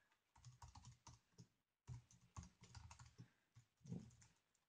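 Faint typing on a computer keyboard: quick runs of key clicks, with a short pause a little before halfway through.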